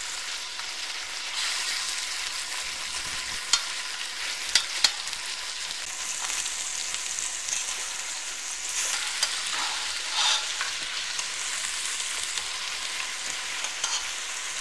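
Turkey pieces sizzling steadily in hot olive oil in a stainless steel saucepan as they are browned, with a few sharp clicks of a metal fork against the pan as the pieces are turned.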